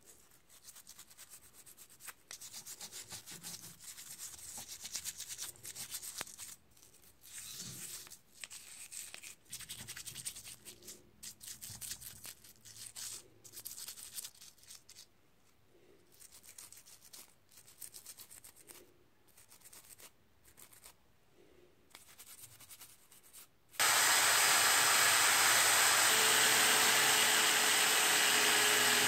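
Toothbrush scrubbing small metal air-impact-wrench parts wet with cleaning liquid, in short irregular strokes. About 24 seconds in, an electric drill starts and runs steadily and loudly, a part held against the spinning wire brush in its chuck to clean off rust.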